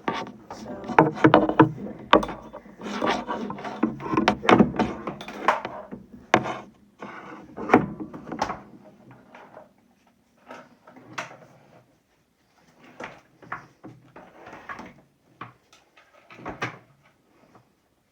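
Irregular knocks, clicks and rustling as a vacuum cleaner's power cord is handled and untangled. The sounds come thick for the first half, then thin out to scattered knocks with short gaps.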